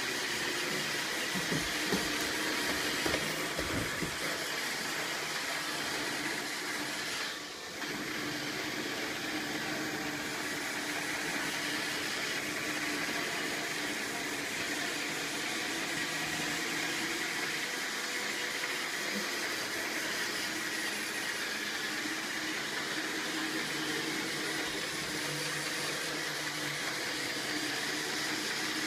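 Roomba robot vacuum running with a steady whir and a high tone. There are a few low thumps in the first few seconds.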